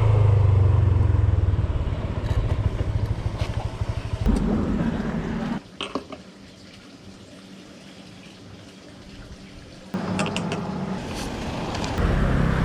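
Motor scooter engine running with a low rumble that cuts off sharply about five and a half seconds in. After a quieter stretch the low rumble returns about ten seconds in and runs to the end.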